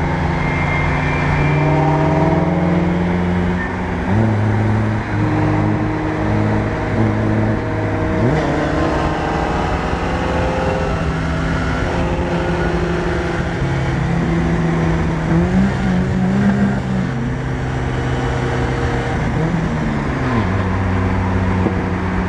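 Steady road and wind noise from a car driving alongside a pickup truck, under a bass-heavy music track whose held low notes change in steps, with a couple of sliding notes.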